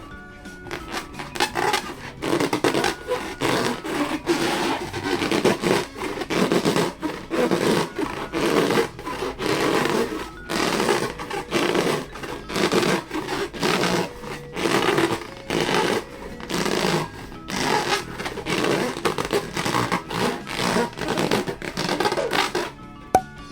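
Rubber balloons being squeezed and rubbed by hand: a long run of short, irregular rubbing strokes, ending in a single sharp click.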